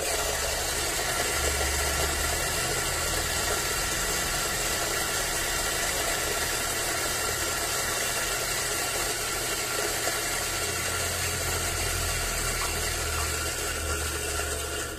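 Electric burr coffee grinder grinding beans at a medium to medium-fine setting: a loud, steady motor whir with the rasp of the burrs. It starts abruptly and stops near the end.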